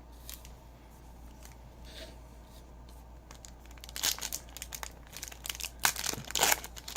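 Crinkling and tearing of a foil trading-card pack wrapper being ripped open by hand, starting about four seconds in after a few faint handling clicks.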